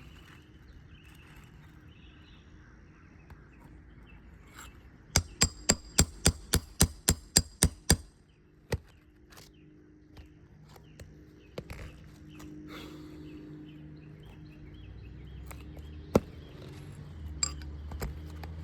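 Hammer tapping a flat pry bar under an asphalt roof shingle to work a nail loose: a quick run of about a dozen sharp, ringing metal strikes, about four a second, starting about five seconds in, then a few scattered single knocks.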